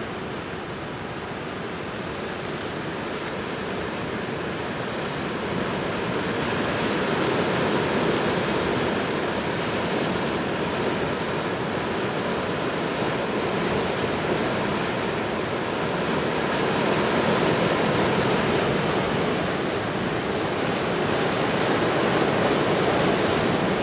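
Sea waves washing against the shore: a steady rushing noise that builds over the first several seconds, then rises and falls gently with the swell.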